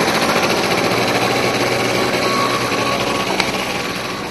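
Small motor scooter engine running as the scooter rides over the leaf-covered ground, a fast buzzing that gets quieter toward the end as it moves away.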